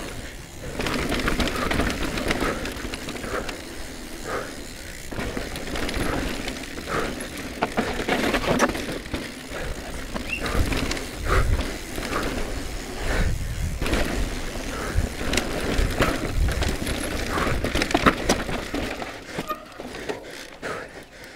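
Cube Stereo Hybrid 140 SLT electric mountain bike racing down a rocky dirt trail: tyres crunching over dirt and stone, with the chain, suspension and frame clattering and knocking irregularly over the bumps.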